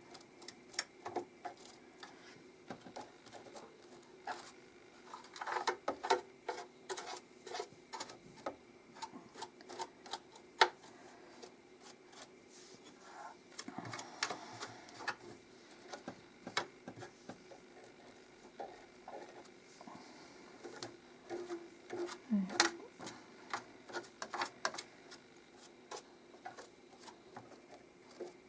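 Irregular small clicks, taps and brushing scrapes from cleaning lint out of the feed-dog and bobbin area of a sewing machine with its needle plate removed.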